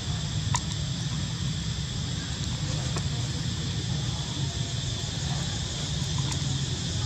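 Steady outdoor background noise: a low rumble under a constant high hiss, with a few faint clicks.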